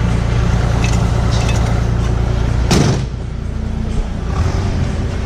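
Kubota 040 excavator's diesel engine idling steadily. About halfway through there is a single sharp metallic clunk, after which the engine sounds a little quieter.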